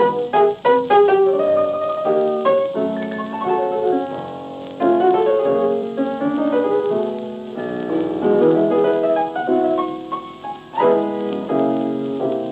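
Background piano music: a melody of quick notes giving way to slower held chords.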